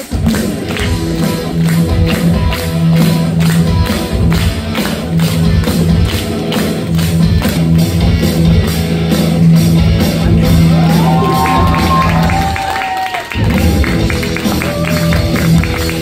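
Live stage music: a steady bass line under a quick, even beat of short hits, with a brief gap in the bass about thirteen seconds in.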